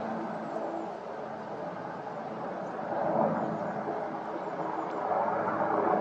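A steady, distant engine hum, swelling a little about halfway through and again near the end, with a few faint high bird chirps.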